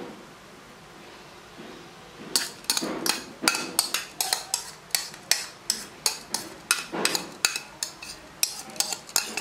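A metal spoon clinking and scraping against a bowl in quick, irregular strokes as the last of the soaked rice is scooped out. It starts a couple of seconds in.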